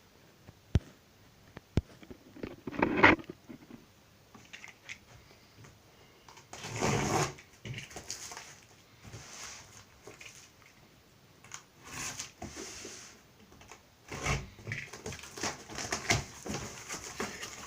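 Handling noises: a few sharp clicks, then irregular bursts of rustling and knocking.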